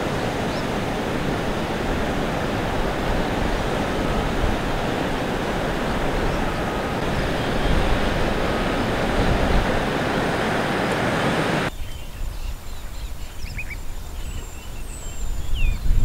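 Loud, steady rushing of wind on the microphone cuts off abruptly about twelve seconds in. A quieter outdoor background follows, with a few short, high bird chirps and a low rumble rising near the end.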